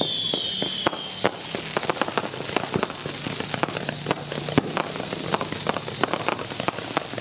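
Ground-launched fireworks going off: a dense crackle of small pops and bangs, over a whistle that falls in pitch and fades out about a second in, then a steady high whistle.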